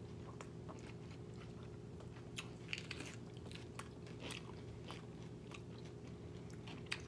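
Two people chewing and biting into lettuce wraps of boiled pork belly: irregular crisp crunches of fresh lettuce and wet mouth clicks.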